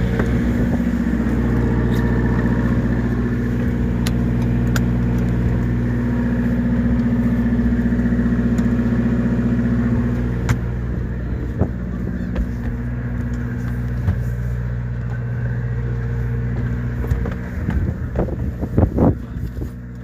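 Fishing boat's engine running steadily, a low hum that eases slightly about halfway through, with a few knocks near the end.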